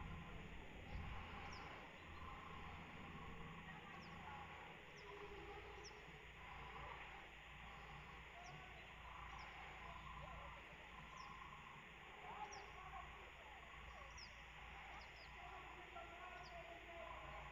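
Faint outdoor ambience: small birds chirping, with short high chirps every second or two and softer, wavering calls lower down over a steady low rumble.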